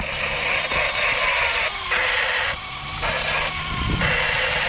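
Electric RC Ducati motorcycle running on concrete, its motor and tyres making a hissing whir that cuts in and out several times as the throttle is let off and opened again.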